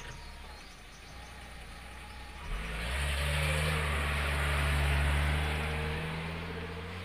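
A car going past, its engine hum and tyre noise swelling from about two and a half seconds in, loudest in the middle, then fading.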